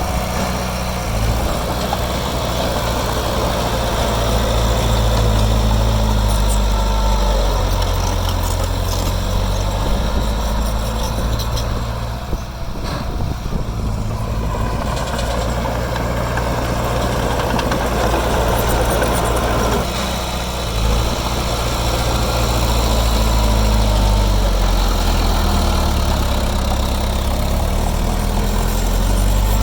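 Heavy diesel engine of earthmoving machinery running, its pitch and load shifting up and down every few seconds, with a brief drop in level about halfway through.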